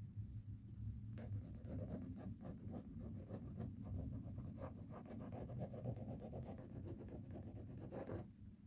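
Fingertips and fingernails rubbing and scratching quickly at sticky packing-tape glue residue on a leather chair seat, working it off. The strokes start about a second in, run as a dense scratchy rubbing and stop just before the end, over a low steady hum.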